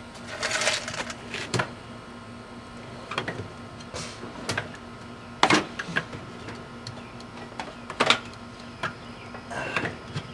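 Scattered clinks and knocks of metal tools and car parts being handled during wheel hub work, about eight separate hits, the loudest about five and a half seconds in.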